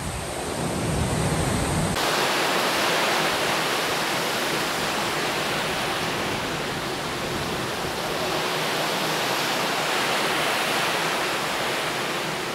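Steady rushing of wind and sea on a moving ferry's open deck. In the first two seconds wind buffets the microphone. After that it is an even, unbroken hiss that cuts off sharply at the end.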